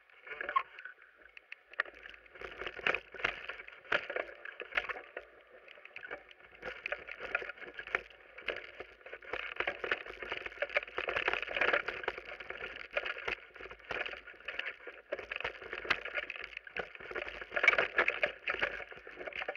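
Mountain bike descending a rough dirt forest trail: a steady rush of rolling noise and wind, broken by many sharp knocks and rattles as the bike hits roots and rocks, with the loudest jolt near the end.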